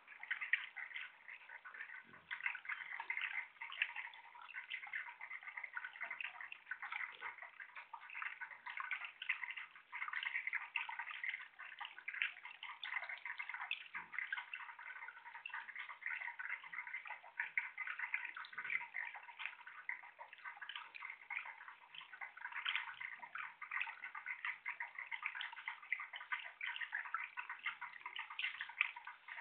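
Bubbler fountain in a birdbath running extra strong, its water splashing and gurgling steadily into the basin.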